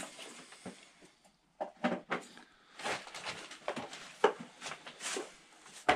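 Scattered footsteps, rustles and small knocks of people moving about and handling things in a cluttered room, with one sharp knock about two-thirds of the way through.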